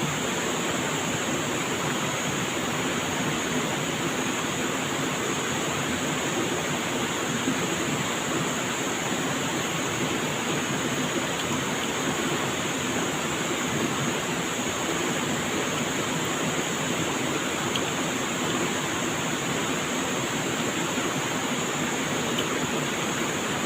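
Flowing stream water rushing steadily, an even noise with no breaks, with a separate steady high hiss over it.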